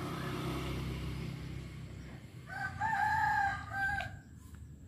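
A rooster crowing once, about two and a half seconds in, in one call lasting about a second and a half. A low rumble before it fades out.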